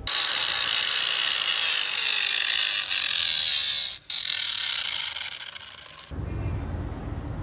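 Angle grinder with a thin cutting disc running at speed against a steel plate, a loud, high, hissing screech that breaks off for an instant about four seconds in and fades out near six seconds. A low steady hum follows.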